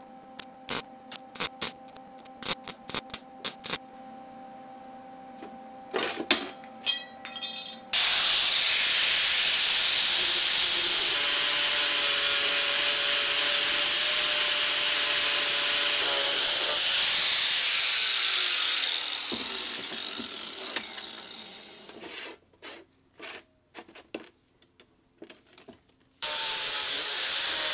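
MIG welder crackling in short irregular bursts as it fills small pits in steel, over the welder's steady hum. About eight seconds in, an angle grinder starts and runs steadily for about ten seconds, then winds down with a falling whine. More brief welding crackles follow, and a steady grinding sound starts again near the end.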